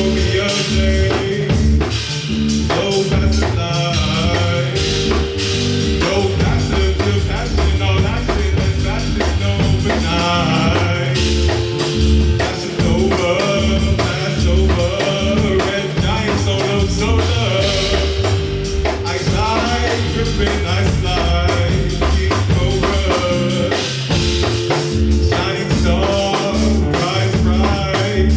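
Live band playing an instrumental groove with a steady drum-kit beat, bass and sustained keyboard or guitar lines.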